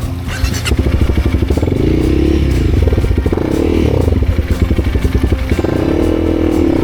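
Motorcycle engine revving under load, its pitch rising and falling repeatedly.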